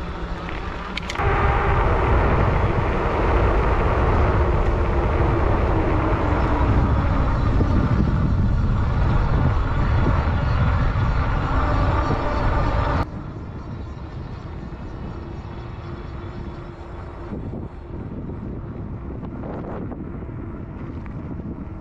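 Riding noise from a fat-tyre e-bike: wind rushing over the microphone along with the hum of the wide tyres rolling on pavement. It is loud until about thirteen seconds in, then drops suddenly to a quieter, steady rolling noise.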